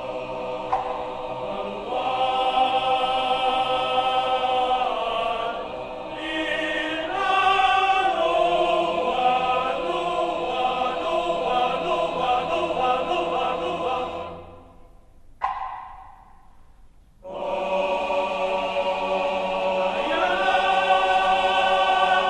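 Background music with voices holding long sung notes. It fades out about two-thirds of the way through and comes back in a couple of seconds later.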